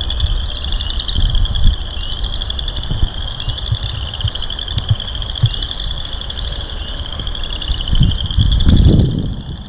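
A marsh chorus of frogs calling: many overlapping rising, pulsed trills about a second long, repeating without a break. Under it, wind rumbles on the microphone, swelling to a louder low buffet near the end.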